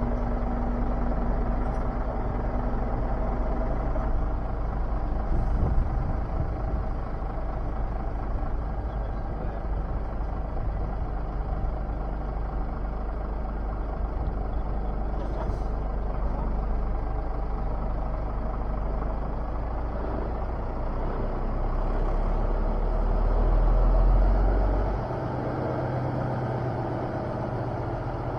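Heavy goods vehicle's diesel engine running at idle, a steady low rumble. About 23 seconds in it swells louder, then drops back suddenly two seconds later.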